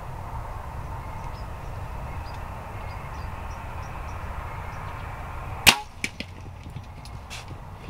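A bow shot: one loud, sharp crack of the string about two-thirds of the way in, followed by a few fainter clicks. Before it there is steady low background noise with faint high chirps.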